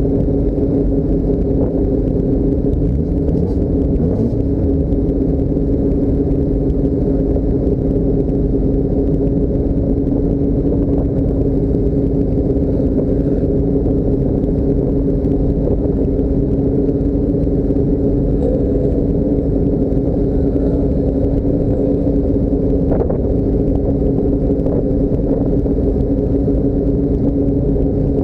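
Car driving at a steady speed: a continuous low rumble with a steady droning hum that does not rise or fall.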